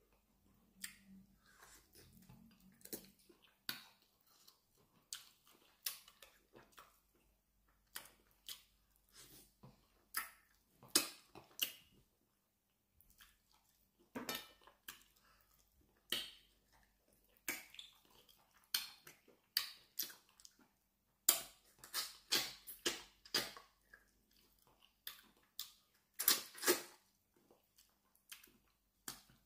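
Close-miked mouth sounds of eating plantain fufu and peanut soup by hand: wet smacks and chewing, an irregular run of short sharp clicks that come louder and closer together about three-quarters of the way through.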